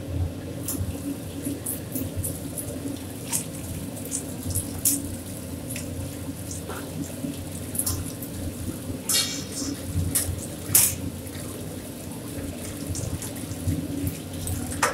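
Kitchen noise: a steady hiss and hum, with scattered light clinks of metal tongs and utensils against a steel tray, and a brief ringing clink about nine seconds in.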